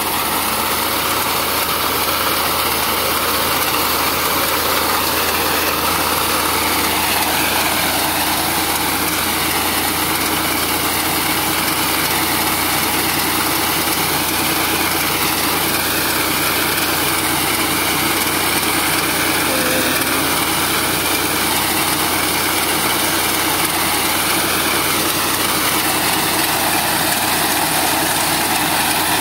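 Massey Ferguson tractor's diesel engine running steadily while it drives a front-mounted reaper cutting standing rice, its pitch wavering slightly with the load.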